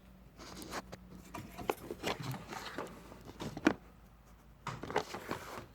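Handling noise while a camera is positioned: scattered light clicks, knocks and rustling, with a faint steady hum in the first couple of seconds.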